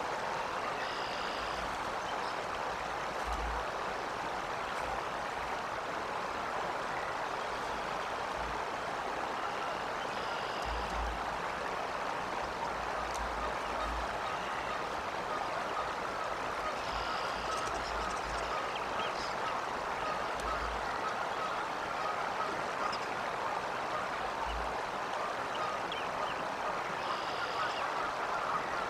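Steady rushing background like running water, with a few short, faint high-pitched calls about four times.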